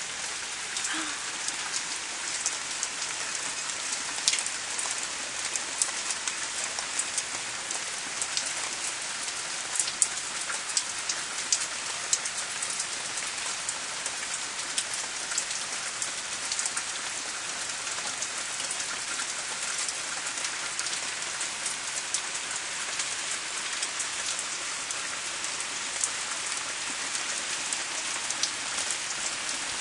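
Steady rain falling: an even hiss with frequent sharp ticks of single drops striking close by.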